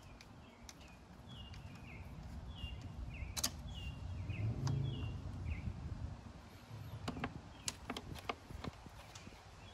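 A screwdriver working on metal hose clamps, giving a few sharp clicks and scrapes: one about three seconds in and a cluster later on. A small bird chirps repeatedly in the background for the first half, over a low rumble.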